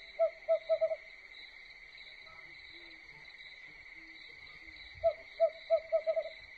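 Night ambience: an owl hooting in two short runs of quick hoots, one right at the start and another about five seconds in, over a steady high-pitched drone of crickets.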